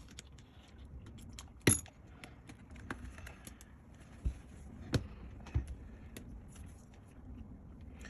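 Scattered small clicks and taps of hand tools against an open laptop's case and battery cells as the glued battery is worked loose, with one sharp click just under two seconds in and a few more around four to six seconds.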